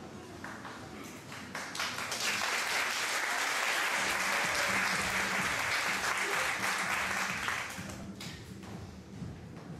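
Audience applauding: the clapping swells within the first two seconds, holds steady, and dies away near the end.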